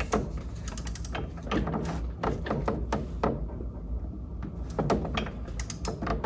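Torque wrench ratchet head clicking and metal tool clinking as the wrench is seated on the retainer nut tool and worked on the shaft. The clicks come in two bunches with a pause of about a second and a half between them.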